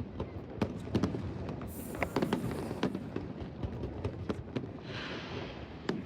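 Fireworks display: a rapid, irregular string of sharp bangs and crackles, with a brief high hiss about two seconds in and a rushing, crackling hiss near the end.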